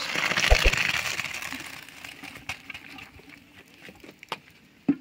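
Steaming rice and hot water poured from a cooking pot into a plastic colander: the water splashes and drains through. It is loudest over the first second or so, then tails off. A few light clicks follow near the end.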